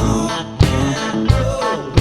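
Country-rock band playing an instrumental fill between sung lines: a guitar lick with bent notes over drums hitting a steady beat, about three hits in two seconds.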